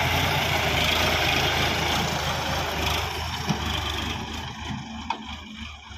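Sonalika DI 35 tractor's diesel engine running as it pulls a loaded soil trolley past, growing fainter from about three seconds in as it moves away.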